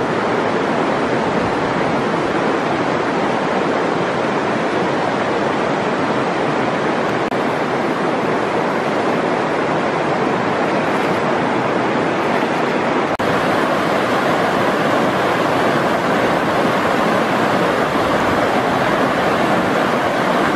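Steady rush of a river flowing over rocks. A short break about two-thirds of the way through gives way to a slightly louder rush of white-water rapids.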